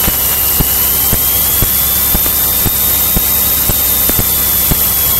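Steady drone of a single-engine piston light aircraft in flight, engine and airflow noise together, with a thin steady whine above it and faint regular ticks about twice a second.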